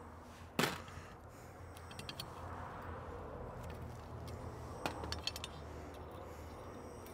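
Small metal carburetor parts being handled and set down during a Rochester Quadrajet teardown: one sharp click about half a second in, then a few lighter clinks and taps, over a low steady hum.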